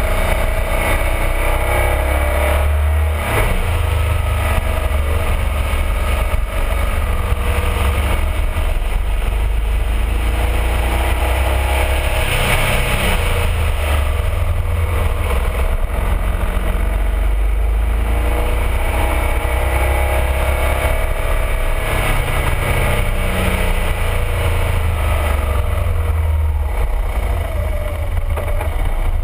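BMW R1200RT motorcycle's flat-twin boxer engine running under way, its note rising and falling again and again as the throttle is opened and closed through a series of bends, over a steady heavy low rumble.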